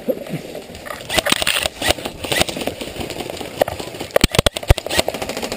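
A player on the move in airsoft gear: rustling and rattling of kit and steps on leaf litter, broken by sharp clicks and knocks, with a tight cluster of louder sharp cracks about four seconds in.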